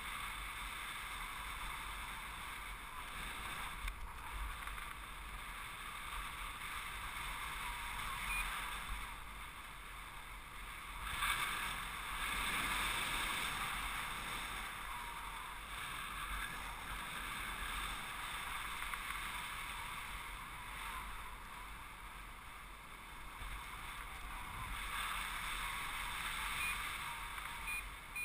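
Wind noise from the airflow of a paraglider in flight rushing over the camera's microphone: a steady rushing hiss, swelling briefly about eleven seconds in.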